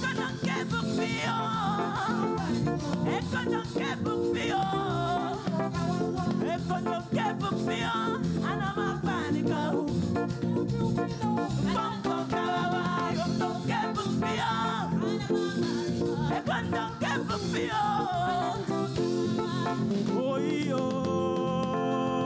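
Church praise music: a band playing a lively, upbeat rhythm with voices singing over it.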